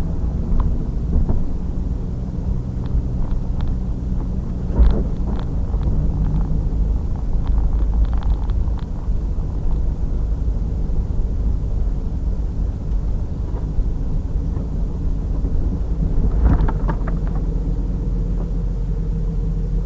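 Pontiac Trans Am Firehawk's LS1 V8 running at a steady engine speed, with heavy low rumble from a rear-mounted camera. A few short knocks come about five seconds and sixteen seconds in.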